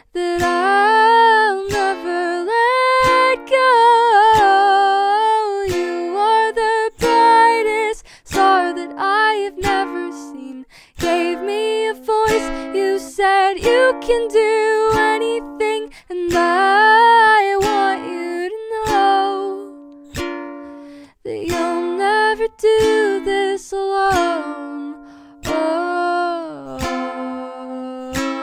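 Gentle acoustic pop music: plucked ukulele-like strings under a wordless gliding melody, with a few short pauses.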